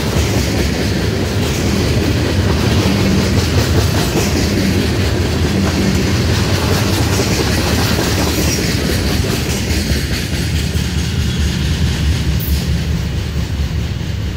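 Freight train cars rolling past, steel wheels clattering steadily over the rails, easing off slightly near the end.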